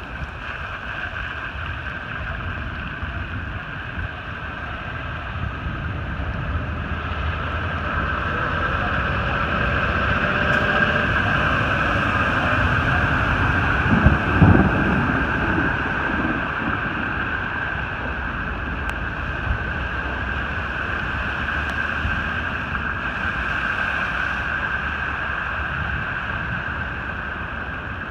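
Steady rushing noise of floodwater with wind buffeting the microphone. It swells slowly to its loudest about halfway through, with a few sharper knocks, then eases off.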